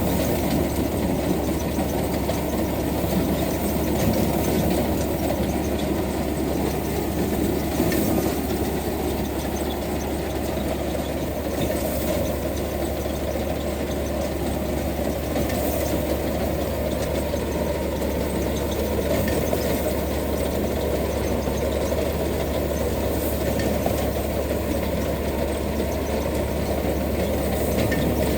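Tractor engine running steadily, powering a tractor-mounted wheat reaper.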